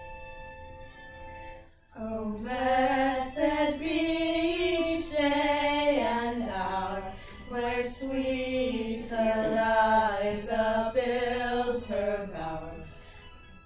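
A held instrumental note stops about two seconds in. Three women then sing together without accompaniment, in short phrases with brief breaths between them.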